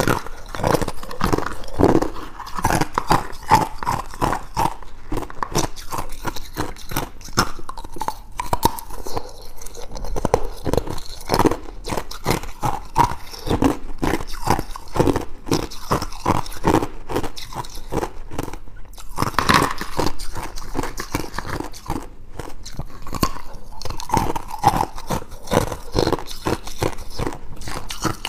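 A person biting and chewing clear ice cubes, a continuous run of sharp, irregular crunches several times a second.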